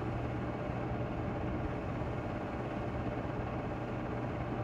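Steady whir of a running 8 mm film projector with a constant low hum, picked up by a cassette tape recorder in the room.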